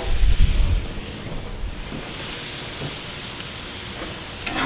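Wind buffeting the microphone in low rumbling gusts, strongest in the first second and again near the end, over the steady hiss of skirt steak sizzling on a hot gas grill.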